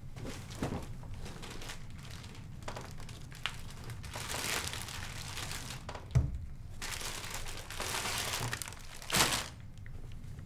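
Crinkly packaging rustling in spells as groceries are handled, with a few knocks of items set down on a table; the sharpest knocks come about six and nine seconds in.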